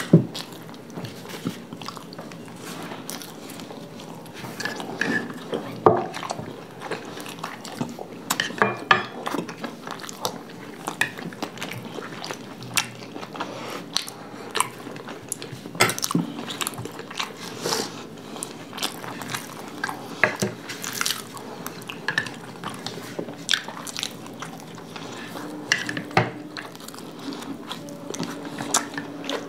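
Two people chewing and biting into gobi parathas (cauliflower-stuffed flatbreads) close to the microphone, with many irregular sharp clicks throughout, among them spoons tapping small bowls of curd.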